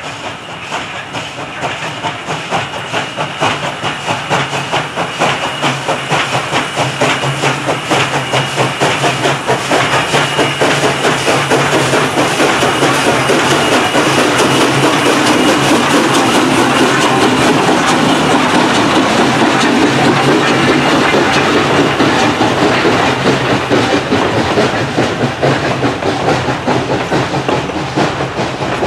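Central Railroad of New Jersey #113, a 0-6-0 steam switcher, passing close by while working hard, with rapid rhythmic exhaust beats that grow louder as it draws level. Near the end the passenger coaches roll past, their wheels clicking over the rail joints.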